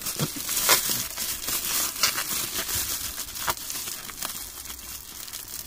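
Clear plastic bag and air-cushion wrapping crinkling and crackling as hands squeeze and pull at them, with sharp crackles every second or so. It gets quieter toward the end.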